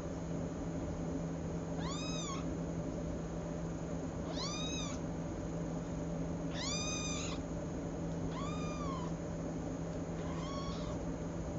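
A kitten meowing five times, short high arching calls about every two seconds, the last one fainter, over a steady low hum.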